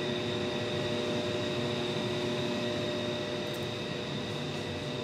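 Steady mechanical hum of a running fan, with a few fixed whining tones over an even hiss.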